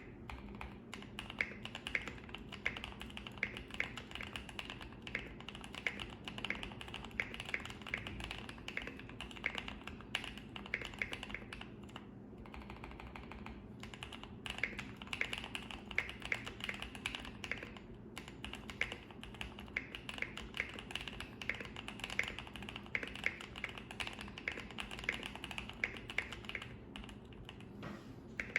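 Typing on a KBDfans Tofu84 mechanical keyboard with lubed Boba U4T tactile switches and Taihao keycaps: a steady run of keystrokes, with a pause of about two seconds near the middle.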